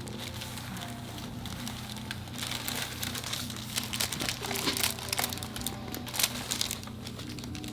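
Crinkling and rustling of the treatment table's covering as a patient shifts on a chiropractic table: a dense run of crackles from a couple of seconds in to near the end, sharpest just after six seconds, over a steady low hum.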